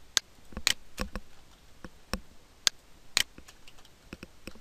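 Typing on a computer keyboard: a string of irregular, separate key clicks.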